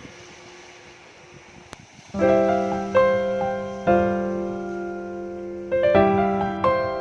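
Slow, soft piano music: after about two seconds of a fading, hushed lull, sustained chords are struck roughly once a second, each ringing on and dying away.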